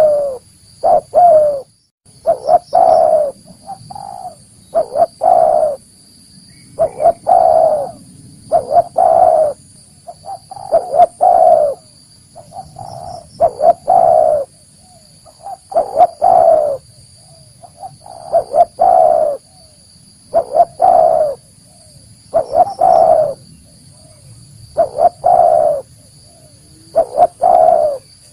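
Spotted dove cooing: a repeated phrase of two or three low coos, coming again about every two seconds.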